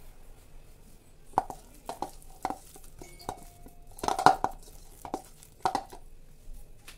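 Thick gram-flour batter being mixed by hand in a stainless steel bowl: a run of short, sharp knocks at irregular intervals as the hand and bowl clack against the steel, thickest about four seconds in.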